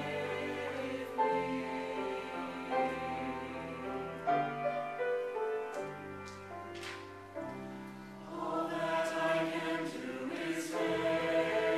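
Mixed choir of men's and women's voices singing a hymn arrangement in held chords. The singing softens just past the middle, then swells louder again near the end.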